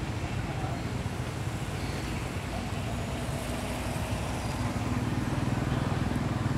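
Steady low engine hum of a motor vehicle, growing a little louder near the end.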